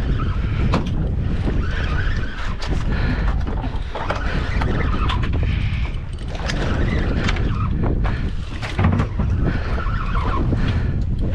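Fishing reel wound in bursts of about a second, every two to three seconds, with sharp clicks, as an angler brings up a strong fish. Under it runs a steady low rumble.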